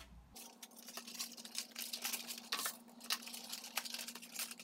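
Cardboard being handled: light scuffs, taps and rustles as folded cardboard dividers are slid into the slots of a cardboard riser, over a faint steady hum.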